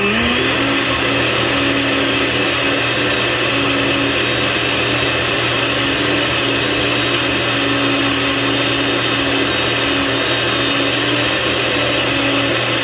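Blender running steadily at full speed, puréeing tomatillos, cilantro and garlic into salsa verde. Its motor pitch rises a little in the first half second, then holds steady.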